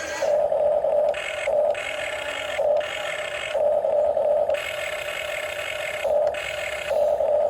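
Small electric motors of a remote-control toy excavator whining in short bursts, starting and stopping about seven times as the controls are worked.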